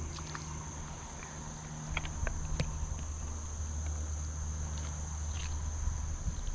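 Insect chorus droning steadily at a high pitch, with a low rumble underneath and a few faint clicks about two seconds in.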